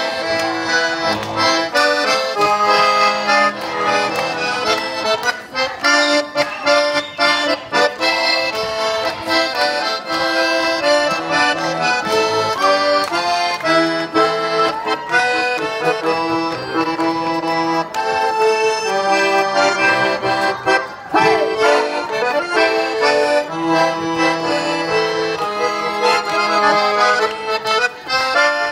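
Garmon (Russian button accordion) playing a continuous folk dance tune of quickly changing chords and melody notes, amplified through stage loudspeakers.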